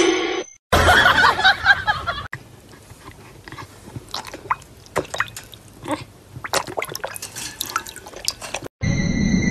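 A dog lapping water from a bowl: irregular wet laps and drips, several a second. A louder, noisy stretch fills the first couple of seconds.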